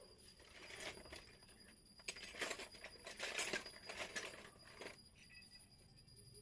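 Faint rustling and light clicking as small plastic toy kitchen pieces and their packaging are handled, busiest between about two and five seconds in.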